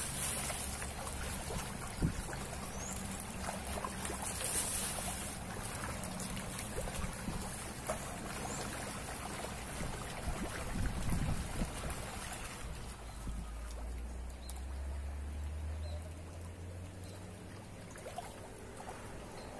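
Pond fish, freshwater pomfret (pacu) among them, thrashing and splashing at the surface as they take thrown feed, a steady patter of small splashes. The splashing thins out about two-thirds of the way through.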